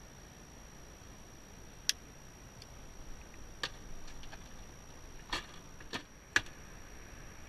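Sharp plastic clicks and knocks from handling a plastic tackle box and its tray, five louder ones spaced out with a few small ticks between, over a faint steady high-pitched whine.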